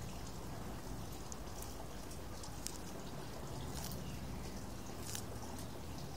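Tortoise biting and crunching a lettuce leaf: faint, irregular crisp clicks over a steady background hiss and low hum.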